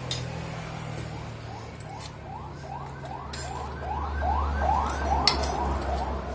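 A siren in a fast yelp, rising sweeps repeating about three times a second, growing louder towards the middle and easing near the end, over a low steady engine hum, with a few sharp clinks.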